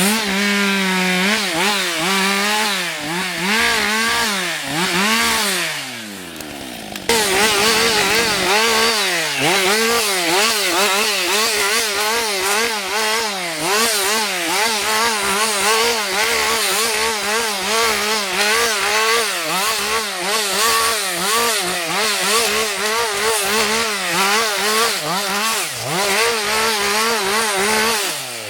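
Husqvarna 560 XP two-stroke chainsaw running at high revs, its pitch rising and falling over and over as it is throttled and loaded in the wood. A few seconds in, the engine speed sinks, then it is abruptly back at full revs and stays there, wavering.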